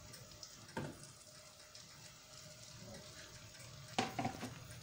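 Beaten egg mixture poured into hot oil in a nonstick wok, frying with a faint sizzle. Two light knocks, one about a second in and a louder one near the end.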